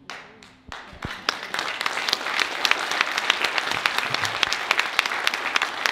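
Audience applauding: many hands clapping, swelling about a second in to a steady, dense round.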